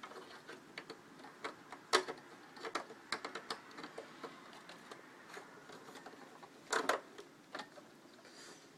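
Irregular light clicks and taps of plastic and metal as a 40-pin IDE ribbon cable connector is worked onto the back of an optical drive inside a desktop computer case, with a sharper knock about two seconds in and another about seven seconds in.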